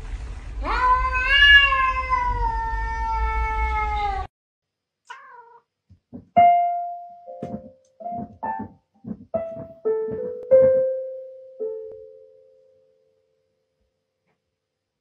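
A cat gives one long meow that falls slightly in pitch. After a cut, an electronic keyboard plays about eight scattered single notes as a cat presses the keys with its paws, the last note ringing out.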